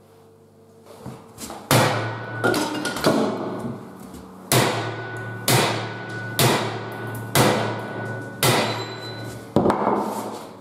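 Sledgehammer striking the trailer's bent steel box-section frame, about eight heavy blows roughly a second apart beginning near two seconds in, each leaving a metallic ring. The blows are knocking back a frame that was bent slightly too far while being straightened.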